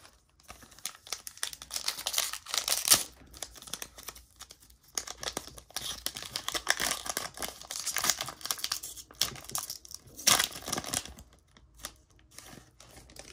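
Foil wrapper of a Panini NBA Hoops trading-card pack being torn open and crinkled by hand, in several spells of crackling with short pauses between.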